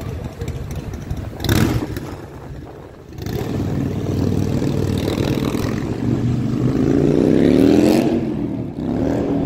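A motor vehicle engine running steadily, then revving up with a rising pitch and easing off, with another brief rise near the end. A short, sharp noise comes about a second and a half in.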